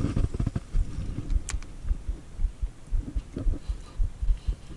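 Irregular low thumps and rumble, with a single sharp click about a second and a half in.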